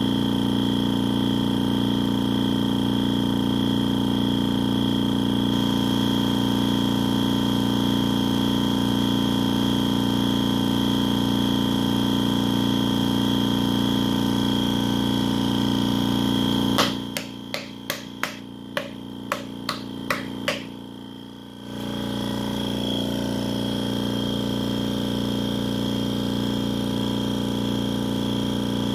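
MTI VTC-100PA vacuum spin coater running with a steady hum and a steady whine. About 17 seconds in the hum cuts off, and a quick series of about ten sharp clicks follows over some four seconds before a steady hum starts again.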